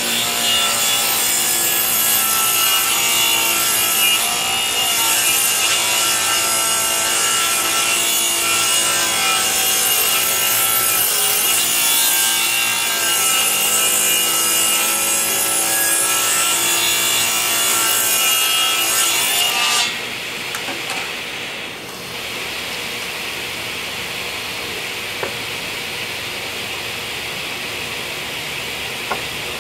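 Table saw ripping a long board along its fence: the spinning blade's whine and the motor under load, steady for about twenty seconds. The cut then ends and a quieter, steady running noise carries on.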